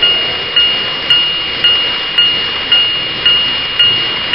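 Model railway level crossing warning bell ringing steadily, about two dings a second, each struck sharply and then dying away. Under it is the faint running noise of an N-gauge train passing over the crossing.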